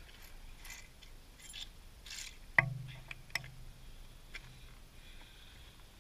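A metal clank about two and a half seconds in, with a low ring that dies away over about two seconds, then a lighter click: magnet-fishing gear, the magnet and its carabiner on the end of the rope, being set down on concrete. Faint rope rustling and small ticks around it.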